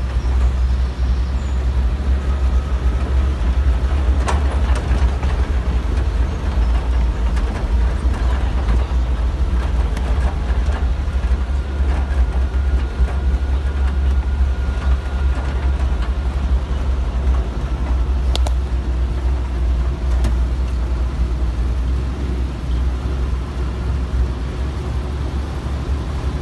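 Engine of an M274 Mule military utility vehicle running steadily as it drives, a constant low rumble with a few brief clicks and knocks.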